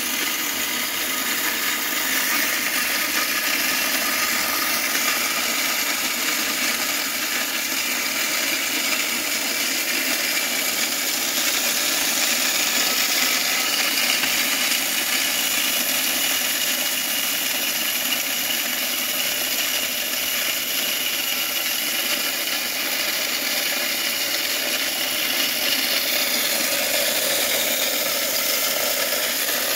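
Electric plate-type corn mill running steadily, its motor turning two grinding plates that crush dry corn into coarse cornmeal. A constant, even grinding noise with a steady motor hum.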